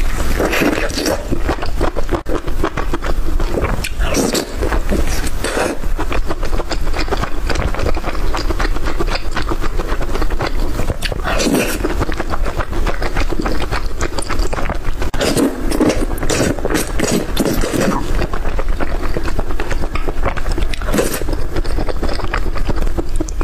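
Close-miked eating sounds: chewing and crunching with scraping and many small clicks, going on without a break.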